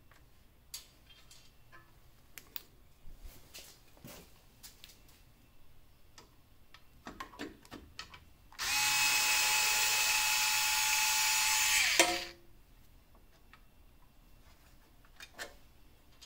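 Cordless power screwdriver with a Torx bit running steadily for about three and a half seconds, with a steady whine, backing out a headlight retaining-ring screw, and stopping with a sharp click. Faint clicks and taps of handling come before it.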